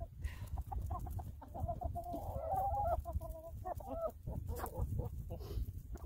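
Chickens clucking, with one drawn-out wavering call about two seconds in and a shorter one about a second later, over a steady low rumble.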